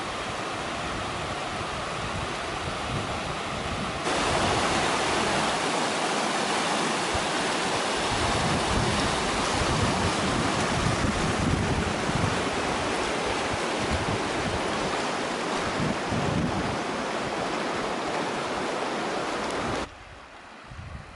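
River rapids rushing over rocks, a steady roar of whitewater. It grows louder about four seconds in and drops off abruptly near the end.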